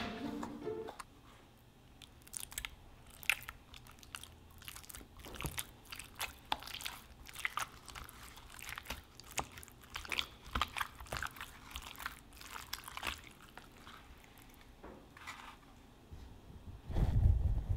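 A hand squeezing and kneading a cup of gel parfait, gelatin cubes in a creamy layer, making faint, irregular wet crackling and squishing as the cubes break apart. A louder low rumble comes in near the end.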